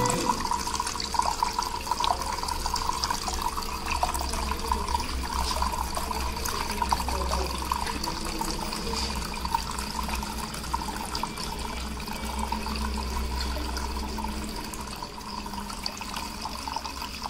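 Water trickling and splashing steadily as it pours from a tilted terracotta pot into a second pot and the clay basin of a small tabletop fountain.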